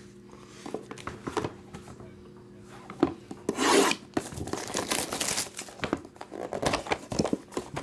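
Cardboard trading-card box being opened by hand: scattered taps and clicks, then rough rubbing and scraping of the cardboard and wrapping in two bursts, about three and a half and five seconds in.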